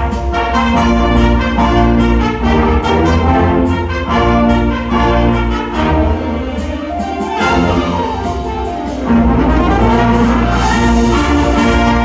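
High school wind ensemble playing loudly, with the brass to the fore in sustained chords.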